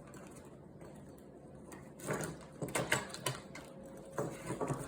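Cockatoo playing with a new toy and its tag: bursts of small clicks and rattles, about two seconds in and again near the end.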